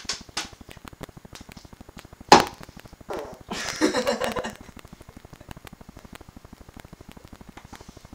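A single sharp knock about two seconds in, then a person's burst of laughter. A fast, even clicking runs underneath.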